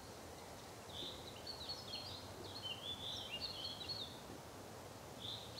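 Faint songbird singing: a quick run of short high chirping notes from about a second in until about four seconds, and one more brief phrase near the end, over a steady low hiss of background noise.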